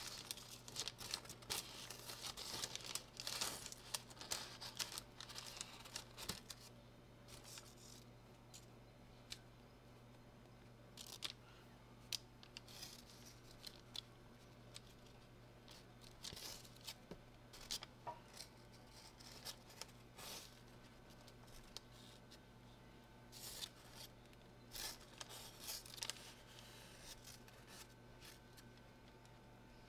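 Baking parchment rustling and crinkling in short, irregular scrapes as a cream-spread sponge cake sheet is rolled up on it by hand, busiest in the first few seconds.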